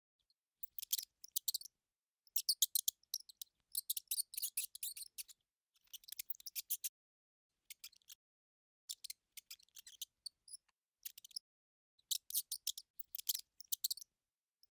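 Mouse squeaking and scratching sound effect: irregular bursts of rapid, high-pitched squeaks and clicks, each lasting about a second, with silent gaps between them.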